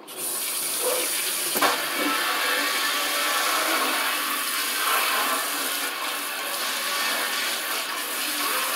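Kitchen tap turned on, water running steadily into the sink, with a single light knock about one and a half seconds in.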